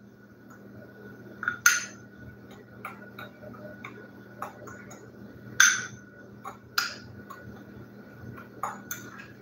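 A metal spoon stirring brown sugar and cinnamon in a white bowl, clinking and scraping against the bowl at irregular moments, with three louder clinks.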